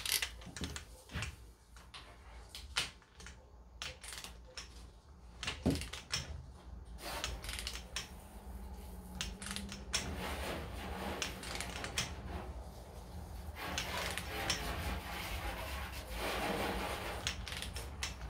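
A click-type torque wrench ratcheting on the camshaft bolt of a Gen 3 392 Hemi as the bolt is tightened toward its 90 ft-lb spec. A few separate clicks and knocks come first, then rapid small clicks from about seven seconds in.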